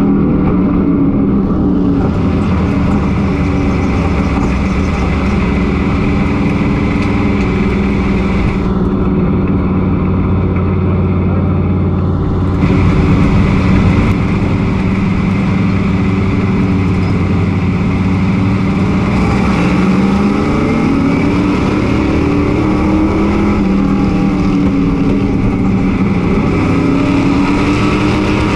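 Chevy Silverado pro race truck's engine at racing speed, heard from inside the cab. Its pitch dips and climbs again twice in the second half as the throttle comes off and back on.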